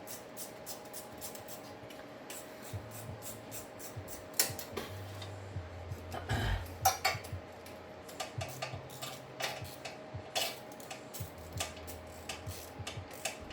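Hand ratchet clicking in short runs and metal tools clinking as small bolts on the hub assembly are tightened hand-tight, with a few louder metal knocks.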